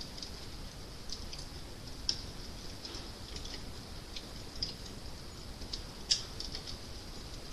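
Wood fire crackling: small irregular snaps and pops over a steady soft hiss, with one sharper pop about six seconds in.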